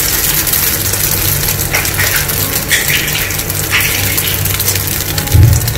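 Oats-and-egg omelette batter sizzling in an oiled non-stick frying pan, a steady hiss, while a wooden spoon spreads it and scrapes against the pan a few times. A short low thump comes near the end.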